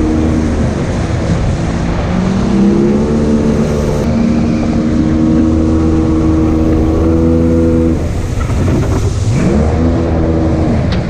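Outboard jet boat engine running hard, under a rush of water and wind. Its pitch dips and climbs back with the throttle: briefly near the start, then sharply about nine seconds in.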